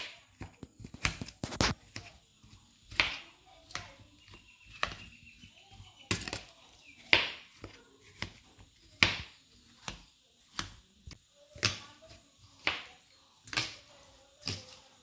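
Close-up mukbang eating sounds of juicy watermelon: sharp, wet mouth smacks and chewing clicks, about one or two a second.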